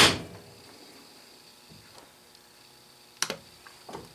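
A flat steel bar knocks sharply against the steel base of a magnetic drill press once at the start. A light click follows a little over three seconds in, then a couple of faint taps near the end.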